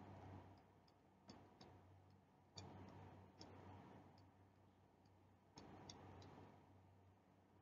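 Near silence with a low hum, broken by a few short clusters of faint clicks and ticks from a stylus tapping on a tablet screen while numbers are handwritten.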